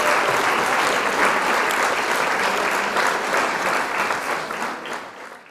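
Crowd applauding with dense clapping, fading out near the end.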